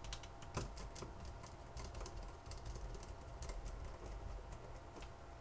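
Faint, irregular small clicks and ticks of tiny screws and a small screwdriver being handled and set into a plastic phone housing as the six screws go in.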